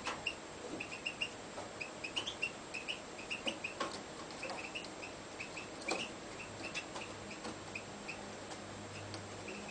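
European goldfinch in a cage giving short, high chirps several times a second, with a few sharp clicks among them. The chirps stop about seven seconds in.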